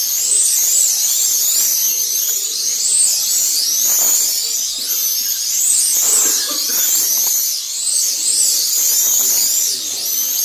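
Several 1/32 scale slot cars racing together, their small electric motors whining at a high pitch that rises and falls over and over as the cars accelerate down the straights and brake into the corners.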